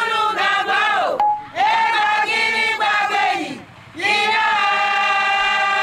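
A group of women singing together in chorus, a voodoo ceremonial chant. The sung phrases break off twice for a brief breath, and the last note is held long.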